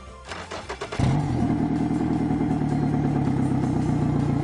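Yamaha outboard motor cranked by its starter for under a second, then catching and running at a steady idle.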